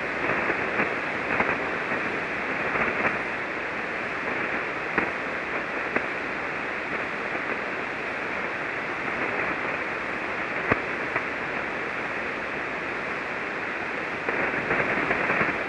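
Shortwave receiver hiss on the 40-metre amateur band in single-sideband mode: a steady rushing band noise through the radio's speaker, dulled at the top by the receiver's filter, with a few short static pops.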